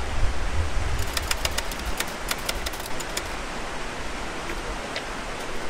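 Steady rushing hiss of a shallow mountain stream running over stones, with a low rumble in the first second or so. A quick run of short, sharp high ticks comes between about one and three seconds in.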